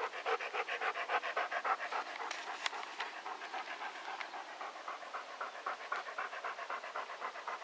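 A dog panting right at the microphone in a quick, even rhythm of several breaths a second.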